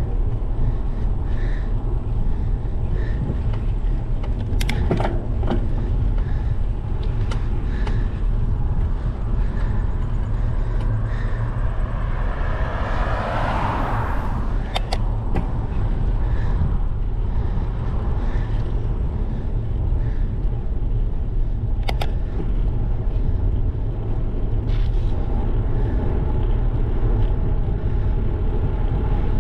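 Wind rushing over a bike-mounted GoPro HERO 12's microphone while riding on asphalt, a steady heavy low rumble with tyre noise, broken by occasional clicks and rattles from the bike. Near the middle a rushing sound swells and fades over about two seconds.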